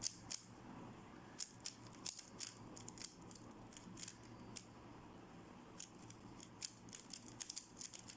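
A 3x3 speed cube being turned fast during a solve: quick, irregular plastic clicks of its layers turning.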